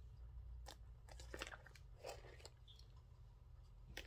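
Faint scattered clicks and light rustling of small items being handled and dropped into a small handbag, over a low steady hum.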